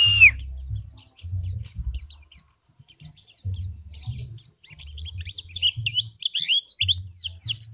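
Caged white-eye (pleci) singing fast and continuously, a rapid stream of short, high, downward-sweeping chirps. In the second half the notes swoop lower and come louder.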